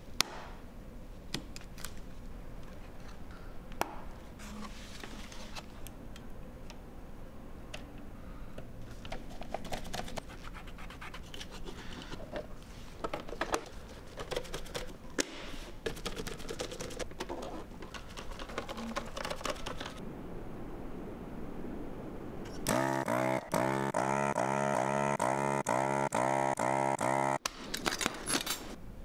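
Small clicks, taps and scrapes of components and a hand screwdriver being handled and worked on metal computer parts during reassembly. Near the end, a much louder buzzing tone that pulses rapidly runs for about five seconds and then stops suddenly.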